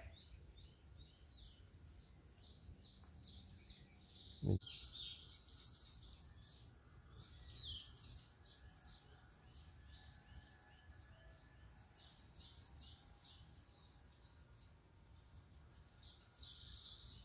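Small birds chirping and calling in the trees, many short overlapping chirps throughout, with a single sharp knock about four and a half seconds in.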